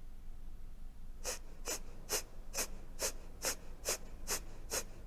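Rapid, forceful yogic exhalations (Virechan Gati breathing) in an even rhythm of about two sharp puffs a second, beginning about a second in.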